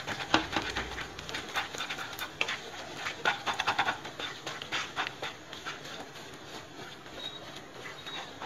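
Spatula stirring and scraping thick rice-flour dough around a kadhai in quick, irregular strokes, busiest in the first half and lighter later. The dough is being mixed well so that no lumps form.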